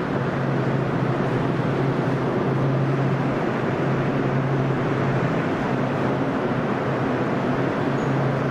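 Steady whirring drone of a walk-in dairy cooler's evaporator fans, with a low hum underneath.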